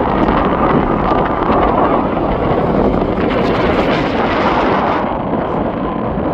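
Jet airliner engines giving a loud, steady roar, with the higher hiss falling away about five seconds in.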